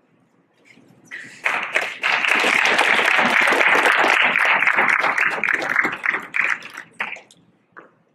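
Audience applauding. It swells about a second and a half in, holds steady for several seconds, then thins to a few scattered claps and stops near the end.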